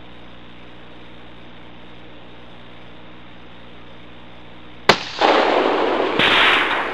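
A single .223 Remington rifle shot from a Savage Model 12 bolt-action about five seconds in, sharp and sudden over a steady low hum, followed by nearly two seconds of loud rushing noise.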